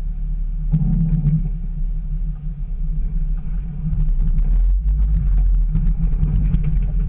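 Jeep Wrangler TJ engine running at crawling speed over rock, a steady low drone that grows louder about four seconds in, with scattered clicks.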